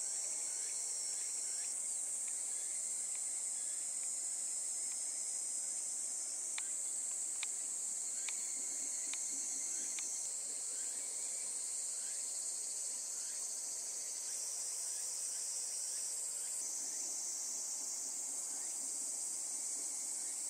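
Steady high-pitched chorus of insects, with a faint short rising call repeating about once a second and a few soft clicks partway through.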